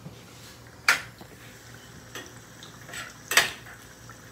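A kitchen utensil knocking and clinking against a pan while the machaca and tomato are being worked, with two sharp knocks, about a second in and near the end, and lighter clicks between them.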